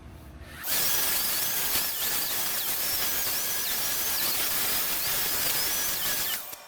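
Electric power sander running steadily against the wooden axe handle, a loud even hiss with a steady whine and a wavering higher tone over it as the pressure changes. It starts about half a second in and stops just before the end.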